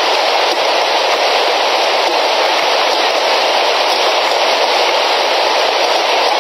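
Heavy rain falling steadily, an even, unbroken hiss with no let-up.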